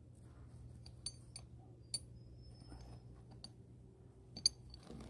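A handful of light metallic clinks and ticks, some with a short high ring, as the steel chain links welded to a grinder lock nut are touched and shifted by hand.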